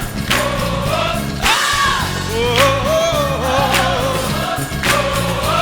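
Gospel choir music with band accompaniment: a wavering, gliding sung line without clear words over steady bass notes and drum hits.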